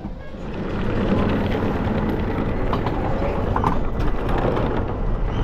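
Roller coaster train hauled up the chain lift hill: a steady mechanical clatter of the lift chain and track with rapid clicking. It builds up about half a second in.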